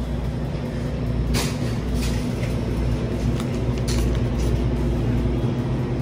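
A loud, steady low rumble like a running motor or machine, with a few short clatters on top.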